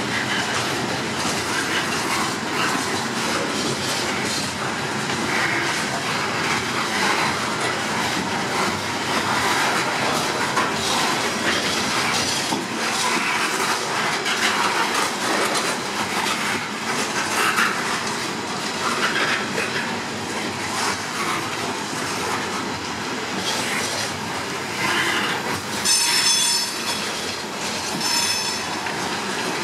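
Loaded coal hopper cars of a freight train rolling past, their steel wheels clattering over the rail joints. A high, ringing wheel squeal comes in near the end.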